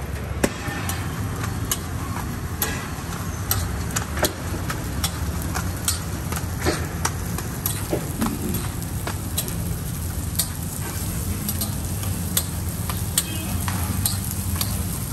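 Metal spatula clicking and scraping on a flat griddle as parottas are turned, in irregular sharp taps about once or twice a second, over a steady low rumble and frying hiss.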